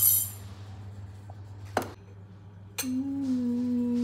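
Dishes and glassware clinking, with a ringing tail, then a single sharp click. Just before three seconds in, a steady hum starts after a click and holds to the end.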